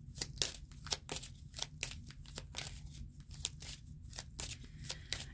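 Tarot cards being shuffled and handled by hand: an irregular run of soft card snaps and clicks, about four a second.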